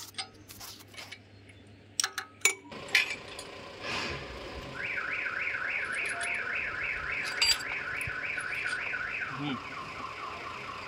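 A few sharp metal clinks of tools on the engine's cylinder head, then about five seconds in an electronic warning alarm starts: fast rising chirps repeating about three to four times a second, dropping lower in pitch near the end, over the low rumble of an engine running.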